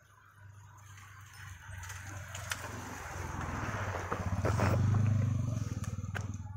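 A motor vehicle passing on the road, its rumble and tyre noise building over several seconds, loudest about five seconds in, then fading, with a few sharp metallic clicks along the way.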